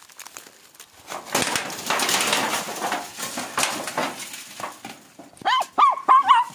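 About three seconds of rustling and scraping in dry ground cover. Then a dog hunting rats gives four or five short, high yelping whimpers in quick succession near the end.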